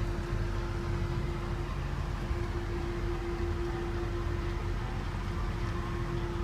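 Steady mechanical hum with an even hiss of air and one constant mid-pitched tone, unchanging throughout.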